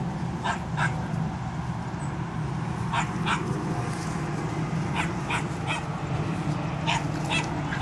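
Two young dogs play-fighting, giving short sharp yips, mostly in quick pairs, about nine in all, over a steady low rumble.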